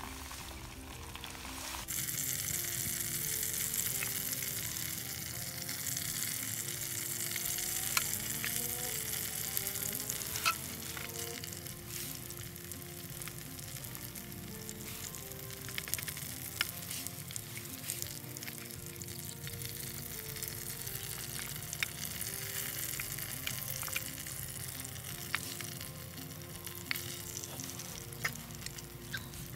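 Bread slices frying in olive oil in a metal mess tin: a steady sizzle with scattered sharp pops, growing louder about two seconds in.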